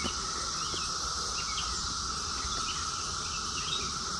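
Steady chorus drone of Brood X periodical cicadas, holding one lower and one higher pitch without a break, with short bird chirps scattered over it.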